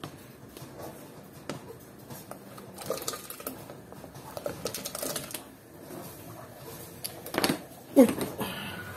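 Diced raw potatoes sliding off a cutting board and dropping into a steel pot of boiling water, in scattered plops and splashes with the board scraping and tapping on the pot rim. Two sharper knocks near the end are the loudest.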